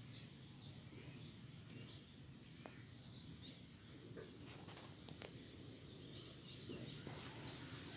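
Faint outdoor ambience: small birds chirp now and then in the distance over a low steady background rumble.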